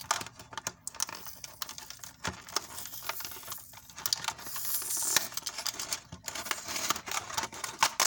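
Fingers handling a Littlest Pet Shop toy pet can: rapid, irregular clicks and taps against the can and its lid as it is turned over, with a brief rustle about five seconds in.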